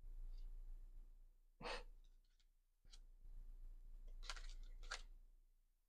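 Near silence: quiet room tone with a low steady hum, a short soft sound about a second and a half in, a faint click about three seconds in, and a longer soft sound around four to five seconds in.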